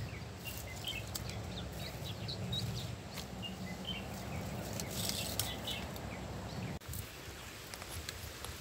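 Birds chirping over a steady low rumble, with a few sharp clicks scattered through; the rumble drops away suddenly about seven seconds in.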